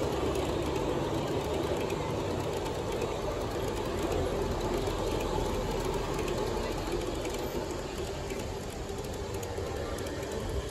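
Large-scale model freight cars rolling past on garden-railroad track: a steady rumble of wheels on rail with faint clicking, easing a little near the end as the last car goes by.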